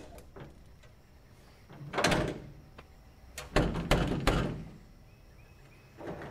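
Steel tailgate of a 1987 Toyota pickup being worked shut, its freshly repaired latch catching. There is a metallic clank about two seconds in, then three quick clunks a little over a second later, and more rattling starts near the end.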